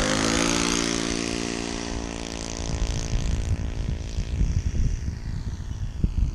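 Magnum .30 four-stroke glow engine of a small RC airplane running, its pitch rising just at the start and then holding steady before fading away after about two and a half seconds. Wind gusts on the microphone come in near the end.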